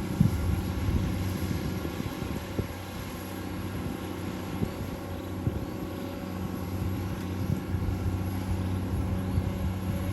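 Komatsu PC200-8 hydraulic excavator working, its diesel engine running with a steady low hum, with a few low knocks scattered through.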